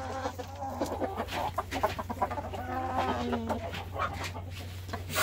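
Superlock gamefowl chickens clucking in short repeated calls, with one longer drawn-out call about three seconds in.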